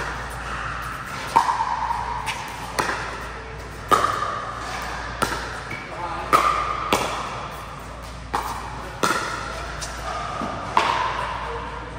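Pickleball paddles striking a hard plastic ball back and forth in a rally: about ten sharp pops, roughly one a second, each ringing briefly in a large hall.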